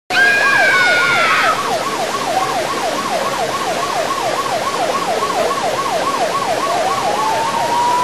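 Emergency-vehicle siren yelping, its pitch sweeping rapidly up and down, then switching to a slow rising wail near the end. A falling higher-pitched tone sounds over it for the first second and a half.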